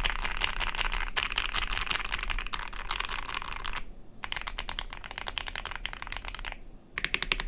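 Ikki68 Aurora mechanical keyboard with Gateron CJ linear switches being typed on quickly, a fast run of keystrokes that breaks off briefly about four seconds in and again near the end.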